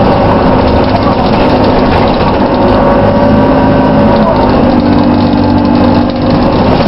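Dennis Dart single-deck bus with a Plaxton Pointer body running, its steady engine note carrying a whirring drivetrain whine. The tones hold steady and drift slightly in pitch.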